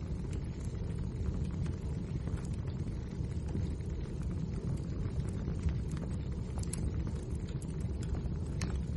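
Wood fire burning in a fireplace: a steady low rumble of the flames with frequent small crackles and pops, two sharper pops in the last few seconds.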